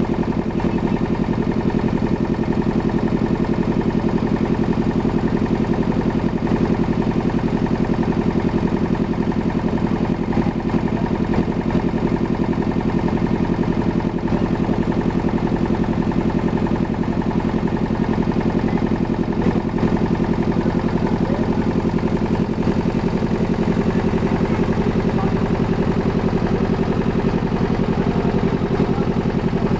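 Engine of a wooden motor ferry boat running steadily under way: a loud, even, low-pitched drone that holds the same pitch throughout.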